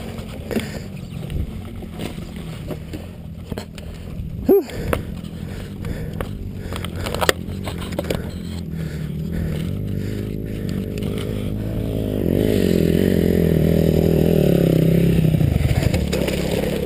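Dirt bike engines running at idle, with scattered knocks and scrapes. About twelve seconds in, more dirt bikes ride up and the engine noise grows louder for a few seconds.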